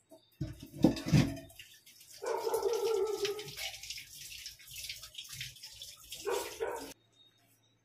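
A dog giving three long, drawn-out barks. A rushing noise with a low rumble comes about a second in, and all of it cuts off abruptly near the end.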